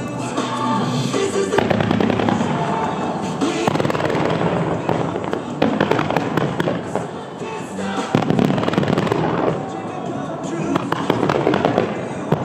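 Fireworks going off in quick succession, launching, bursting and crackling, over music played for a synchronised fireworks show; the bangs grow sharply louder about eight seconds in.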